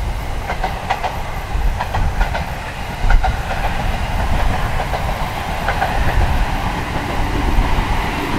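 ET127 series electric multiple unit running past on the line, its wheel and running noise building as it comes across, with a few sharp clicks of wheels over the rails. Heavy wind buffets the microphone underneath.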